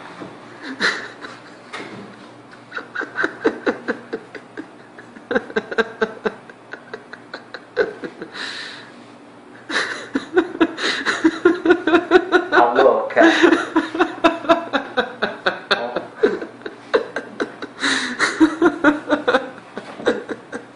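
Men laughing and snickering in quick repeated bursts, held back at first and growing louder and more continuous about halfway through.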